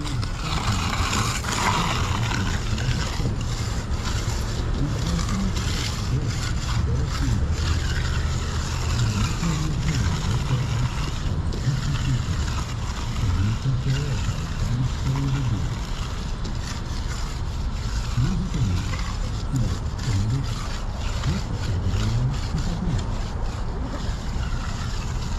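Steady low mechanical rumble with wind buffeting the microphone, and faint voices in the background.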